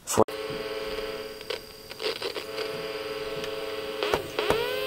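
Steady electrical hum made of several fixed tones, starting with a sharp click about a quarter second in. Near the end a second set of tones sweeps up in pitch and levels off.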